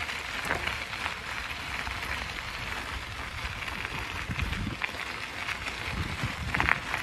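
Riding noise from a bicycle on the move: a steady rush of tyres on the road and wind buffeting the phone's microphone, with a few light rattles.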